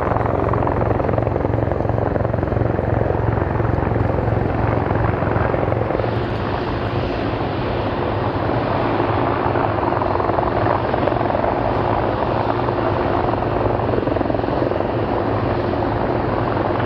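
Bell CH-146 Griffon military helicopter running steadily: the turbine noise and rotor beat, with a regular low pulsing thud from the main rotor blades.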